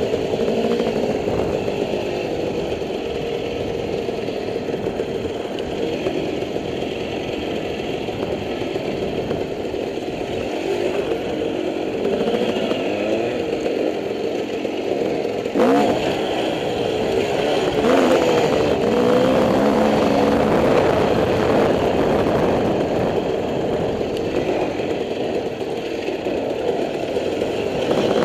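Dirt bike engine running underway, its pitch rising and falling as the throttle is worked over uneven rock. There is a sharp knock about halfway through.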